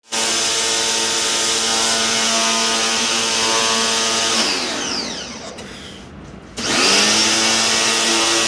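Jet pump pressure washer running with a steady motor hum and spray hiss. About four and a half seconds in the motor winds down, falling in pitch, and about two seconds later it starts again, rising back to full speed.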